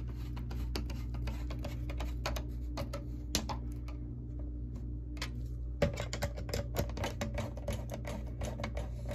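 Screwdriver turning and tightening the screws in a bidet seat's plastic mounting brackets on a toilet bowl: a run of small irregular clicks and ticks, coming thicker in the second half, over a steady low hum.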